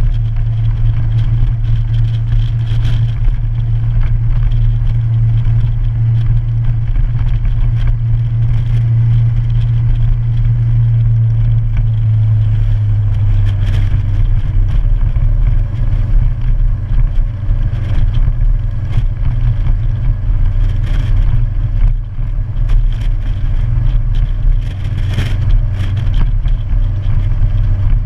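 Motorcycle engine running steadily on the road, a loud low drone that drops slightly in pitch about halfway through.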